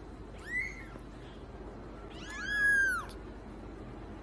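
A young kitten mewing: a short, faint high mew about half a second in, then a longer, louder one that arches up and falls away at its end about two seconds in.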